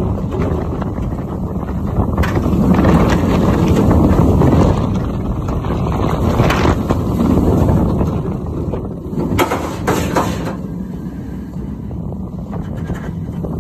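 Bolliger & Mabillard floorless roller coaster train running fast along its steel track: the wheels rumble and the wind buffets the rider's phone microphone, rising and falling through the turns, with a few short rattles about two-thirds of the way through.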